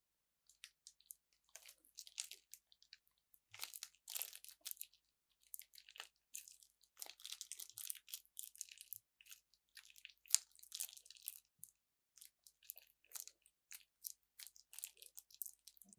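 Glossy slime squeezed out of a plastic piping bag: faint, irregular sticky crackling and popping in uneven clusters.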